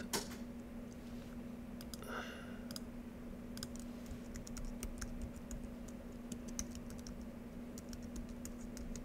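Typing on a computer keyboard: a run of quick, irregular key clicks starting about three and a half seconds in, over a steady low electrical hum.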